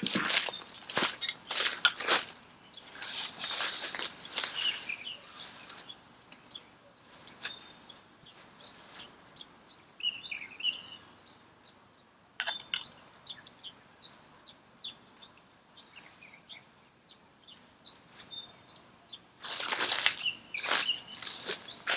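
Bursts of sharp crunching and cracking handling noises, dense at the start and again near the end, with scattered clicks in a quieter stretch between. A bird chirps briefly about ten seconds in, and a faint steady high whine runs underneath.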